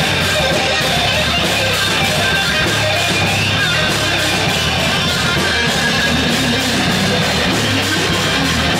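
Heavy metal band playing live: electric guitar, bass guitar and drum kit in a steady, loud, dense groove without a break.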